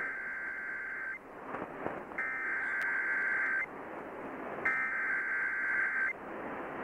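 Three Emergency Alert System SAME data bursts from a weather radio broadcast: shrill two-tone digital warbles, each lasting about a second and a half, with a pause of about a second between them, heard over radio static from weak reception.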